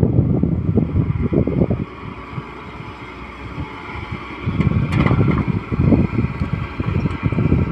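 Excavator's diesel engine working, loud and uneven in surges, easing off for a couple of seconds and then loading up again, with a sharp knock about five seconds in.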